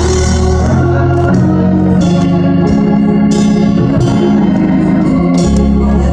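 Organ played in a gospel praise style: sustained chords held over a bass line that steps to a new note every second or so.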